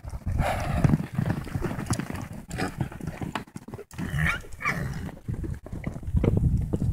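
Hooves of several young Quarter Horses galloping and trotting on a dry dirt pen: a rapid, irregular patter of hoofbeats.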